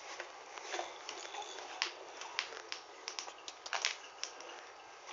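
Irregular clicks and knocks of plastic baby walkers rolling and bumping on a wooden floor, the sharpest about two and four seconds in.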